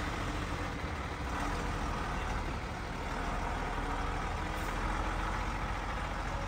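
MAN fire engine's diesel engine idling steadily, a constant low hum.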